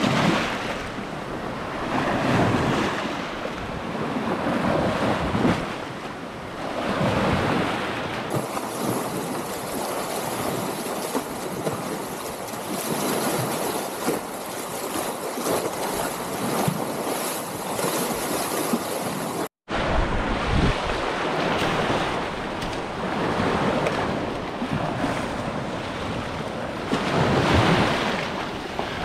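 Small waves from the Chesapeake Bay washing in over sand and pebbles in the shallows, swelling and ebbing every few seconds. The sound cuts out for an instant about two-thirds of the way through.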